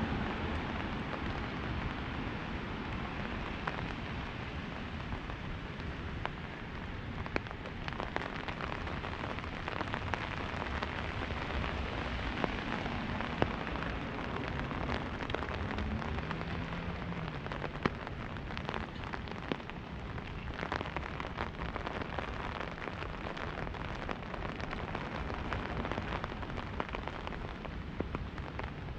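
Rain falling on an umbrella overhead: a steady hiss with many sharp ticks of single drops striking the canopy.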